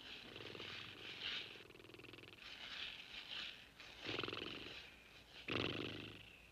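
A rasping, animal-like voice sound effect in four or five bursts, the loudest about five and a half seconds in.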